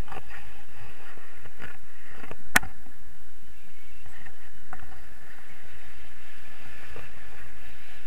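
Steady rush of air over the action camera's microphone in paraglider flight, with a sharp click about two and a half seconds in and a few fainter knocks.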